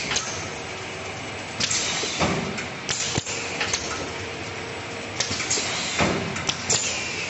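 Automatic toilet-paper maxi-roll film-wrapping and shrink-packaging machine running: a steady mechanical noise with repeated clacks and short hissing bursts at uneven intervals as rolls are fed and wrapped.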